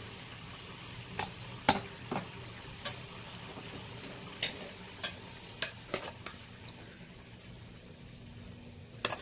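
Metal ladle clinking and scraping against a stainless steel plate while portions of cooked rice vermicelli are scooped and shifted. About a dozen sharp, irregularly spaced clinks over a faint steady background.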